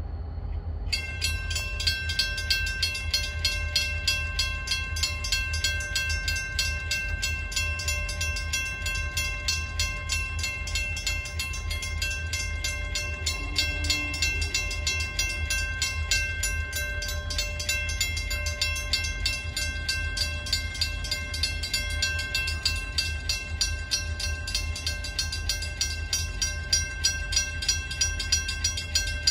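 Railroad crossing warning bell ringing in a rapid, steady rhythm, sounding while the crossing signals flash with the gates down for an approaching train. A low, steady rumble runs underneath.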